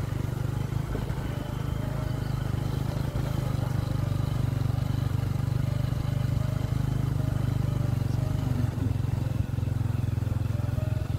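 Motorcycle engine running steadily while the bike rides along a dirt track, an even low drone.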